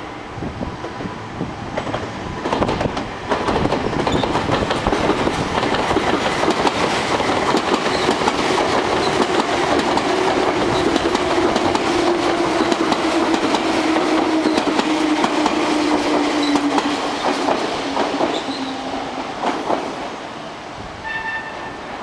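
A Meitetsu electric train passing, its wheels clattering over the rails, with a steady whine that slowly drops in pitch while it goes by. The sound builds over the first few seconds and fades near the end.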